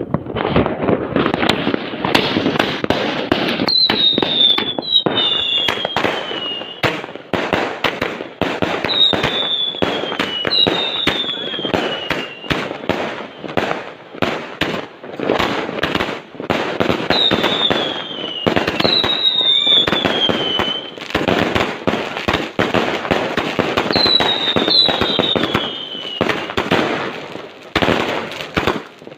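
Fireworks going off in a dense, continuous barrage of bangs and crackles. Whistling shells add falling whistles, mostly in pairs, several times throughout.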